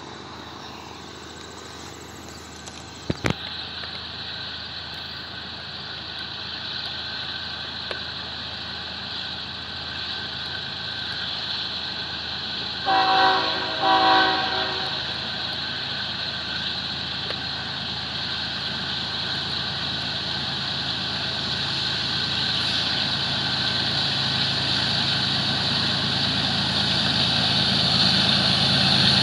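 Approaching freight train led by two GE ES44DC diesel locomotives, its rumble growing steadily louder as it nears. Two short horn blasts sound about thirteen seconds in, and a single sharp knock comes about three seconds in.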